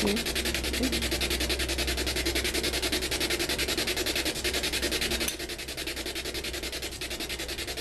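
Ghost box sweeping through radio stations: a rapid, even chopping static with a low hum beneath, dropping a little in level about five seconds in.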